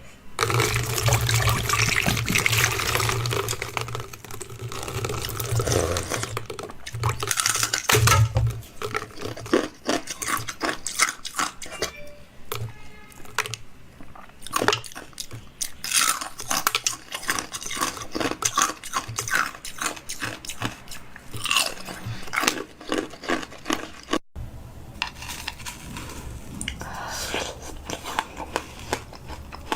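Close-up eating and drinking sounds: wet chewing and crunching, with liquid sounds and many short clicks and taps.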